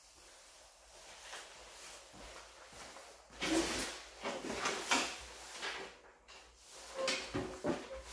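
Footsteps on a concrete floor and clothes rustling, then irregular knocks and creaks as a person climbs onto a ride-on mower's seat.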